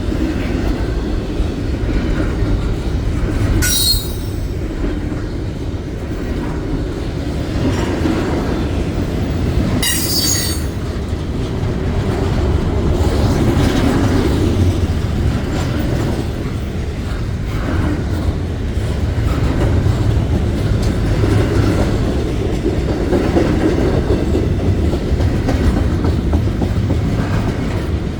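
Freight train cars rolling past with a steady rumble and wheel clatter. Two brief high-pitched wheel squeals come about four seconds in and again about ten seconds in.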